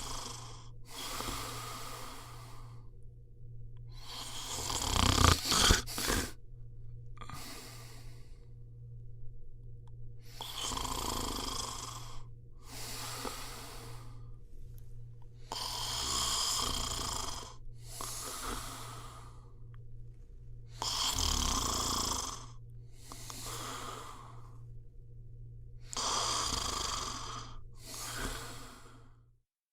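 A person snoring: noisy breaths that come mostly in pairs, a pair about every five seconds, with quiet gaps between them and the loudest breath about five seconds in.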